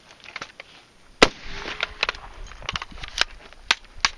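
Mud-fouled AR-15 being worked by hand to clear a malfunction: metallic clicks and clacks of the charging handle and bolt, with one sharp clack about a second in the loudest. The owner blames the stoppage on the mud packed into the action.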